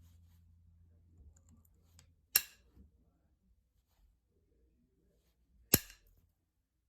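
Two sharp cracks about three seconds apart, each with a short ring: flakes snapping off a novaculite point as it is knapped.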